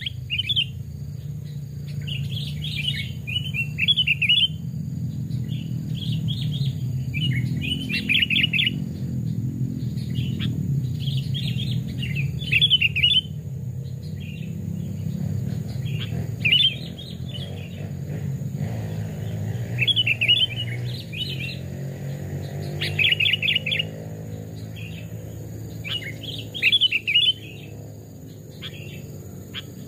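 Sooty-headed bulbul singing short bursts of quick, chirpy notes, a phrase every two to three seconds, over a steady low rumble.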